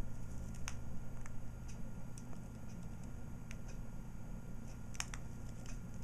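Scattered small clicks and taps from two budgerigars moving about in their wire cage, the strongest about five seconds in, over a steady low hum.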